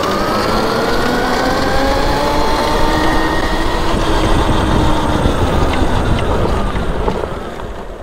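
Electric dirt bike's QS mid-drive motor whining under acceleration: the pitch rises over the first few seconds, holds, then falls away near the end as the bike slows, over a low rumble.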